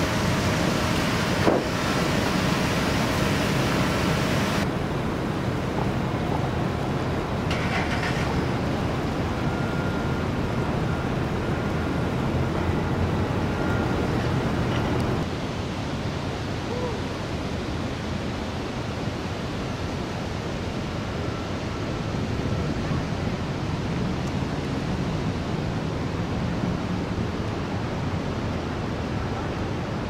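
Steady rushing street noise of city traffic, with no clear single source; the background changes abruptly twice, about five and about fifteen seconds in.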